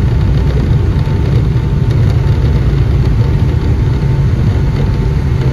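Steady low rumble inside the cabin of a Boeing 757-200 rolling along the ground after landing, engine and airframe noise with a faint steady whine.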